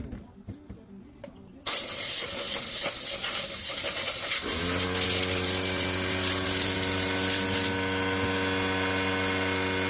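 A sudden loud hiss of spraying air or water starts about two seconds in and stops near the end. About halfway through, an electric motor spins up and runs with a steady hum, still going after the hiss stops. This is cleaning equipment in use on a dirty tool.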